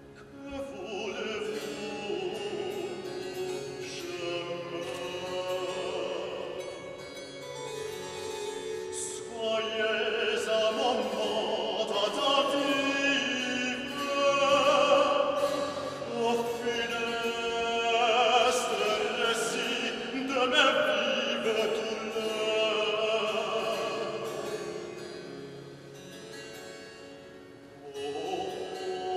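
A baritone singing classical vocal music to harpsichord accompaniment, the voice's long sung phrases over the harpsichord's quick plucked notes. The music grows louder about a third of the way in and eases off before swelling again near the end.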